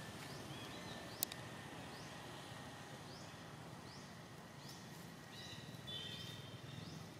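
Outdoor forest ambience: short rising chirps from a bird or insect repeat every half second or so, with a single sharp click just over a second in and a brief high call near six seconds.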